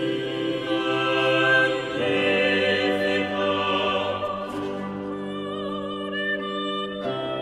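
Slow classical-style background music: sustained chords under a melody line with vibrato, moving to new notes near the end.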